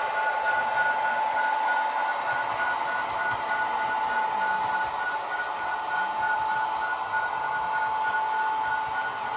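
HO-scale Athearn Genesis GP40-2 model diesel locomotive running, its Tsunami 2 sound decoder playing diesel engine sound through the small onboard speaker. It is a steady hissing drone with a high steady whine.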